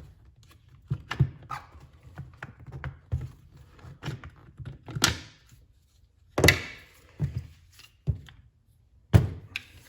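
Parts of a disassembled impact driver being handled and set down on a workbench: irregular clicks and knocks, the loudest about six and a half seconds in.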